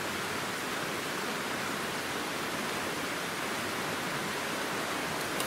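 Steady rush of a river flowing over rocks.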